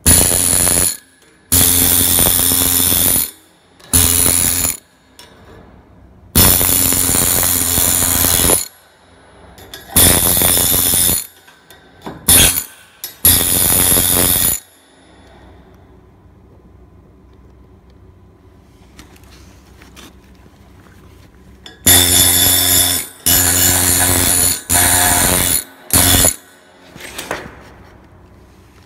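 MIG/MAG welding arc from a 1.2 mm wire torch at about 250–270 A and 21–24 V on a steel T-joint, crackling and buzzing in about a dozen bursts of one to two seconds, stopping and restarting. It goes quiet for several seconds about midway, then comes back in four shorter bursts.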